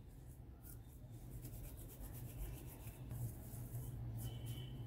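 Hands rolling soft bhatura dough into balls, a faint, irregular rubbing and scratching, over a steady low hum.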